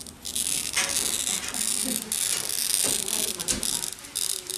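A hand-held wheel glass cutter scoring a sheet of stained glass along a glass template, a steady, scratchy high hiss lasting about three and a half seconds. The score is the line of weakness along which the glass will then be broken.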